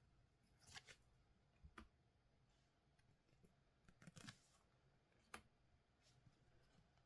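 Faint handling noises of collectible trading cards and their packaging: a handful of short rustles and clicks, with a small cluster in the middle.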